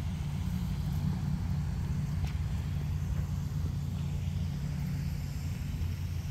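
Steady low rumble of outdoor background noise, with a faint hiss above it and one faint tick about two seconds in.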